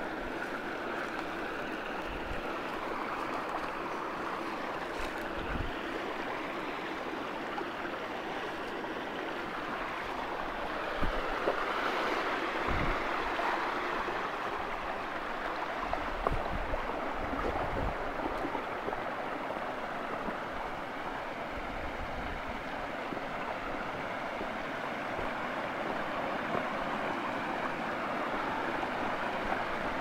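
Steady rush of a rocky mountain stream and small waterfall, swelling slightly about halfway through, with a few brief low thumps.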